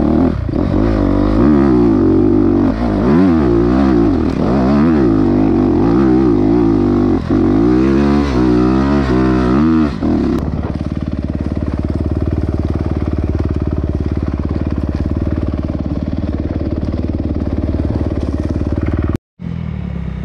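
Dirt bike engine revving up and down as it is ridden, its pitch rising and falling quickly with the throttle. About halfway through it settles into a steady, even note. The sound cuts out for a moment near the end.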